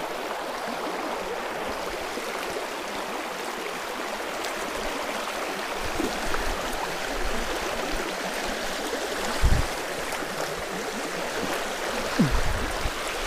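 Shallow stream rushing over rocks in a steady riffle. Two dull thumps stand out, one about nine and a half seconds in and another about twelve seconds in.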